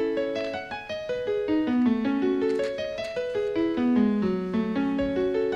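Keyboard played in a piano voice: a solo, gently moving melody of single notes over lower held notes. It is the musical interlude that fills the break in the broadcast.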